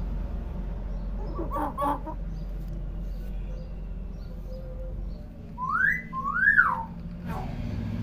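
Common hill myna giving two loud whistles a little past the middle: the first rises and holds, the second rises and falls. A short softer call comes about two seconds in.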